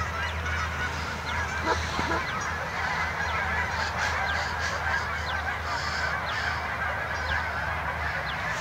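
A large flock of Canada geese honking continuously, many calls overlapping, as the flock takes flight after being flushed by a dog.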